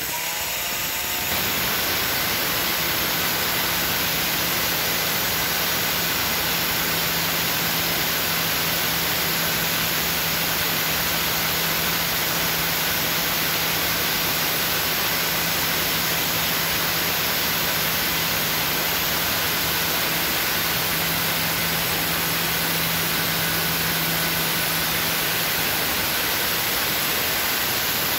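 A Makita diamond-blade dry cutter spins up and then runs steadily as it dry-cuts porcelain tile along a guide rail. The diamond blade has just been sharpened on sandstone and cuts noticeably easier.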